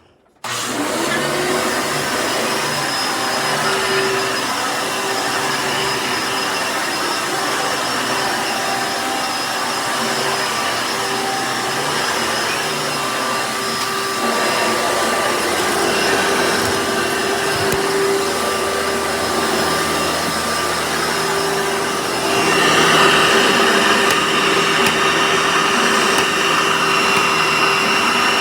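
1997 Hoover Decade upright vacuum cleaner switched on about half a second in, its motor spinning up and then running steadily with a whine. About 22 seconds in it gets louder and brighter.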